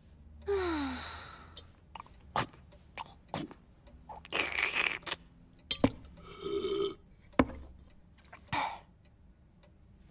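Cartoon sound effects of a bored character at a dinner table: a falling vocal groan, then scattered sharp taps and clicks, and breathy blowing with a low hollow hoot, like air blown into a small vase.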